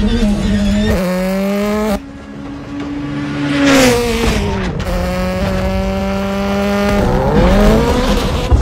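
Rally car engine at high revs with tyre squeal as the car slides, the pitch held steady for long stretches. It breaks off suddenly about two seconds in, climbs and falls again around four seconds in, and swoops down and back up near the end.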